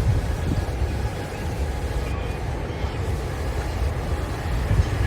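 Steady low roar of the Rhine Falls' rushing water, with a rumble of wind on the microphone.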